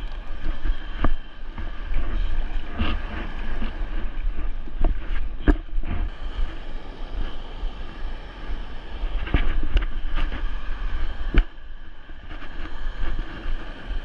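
Wind buffeting the microphone in uneven gusts over the steady rush of water pouring over a dam, with a few short clicks.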